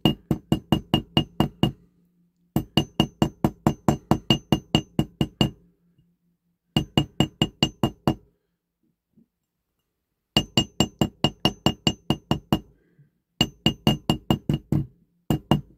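Small hammer tapping a bent thin metal toy-car axle against a metal block to straighten it: quick light taps, about six a second, each with a metallic ring. The taps come in runs of a few seconds with short pauses between, and a longer pause midway.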